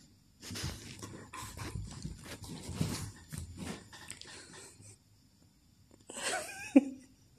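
A Labrador and a cat play-fighting on a sofa: the dog's heavy breathing and the scuffling of paws and bodies on the cushions for about four seconds, then, after a short pause, a brief animal cry that falls in pitch near the end.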